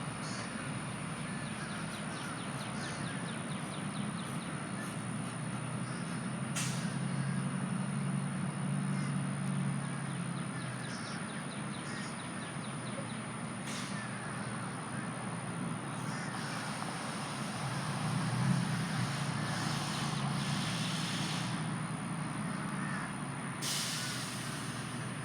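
Steady low mechanical hum with a constant high-pitched tone over it, and a few sharp clicks.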